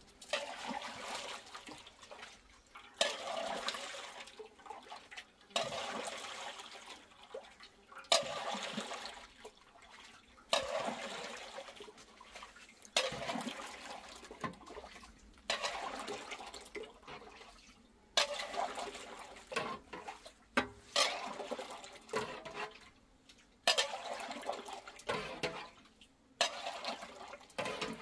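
Milk poured again and again from a bowl through a metal funnel into a pot, a splashing, gurgling pour about every two and a half seconds, each starting sharply and trailing off.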